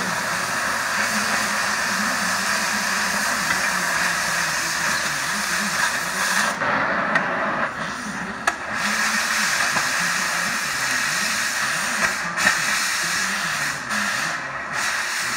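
Welding on the steel of a tractor loader bucket: a steady hiss that breaks off for a second or two about seven seconds in and briefly twice more near the end.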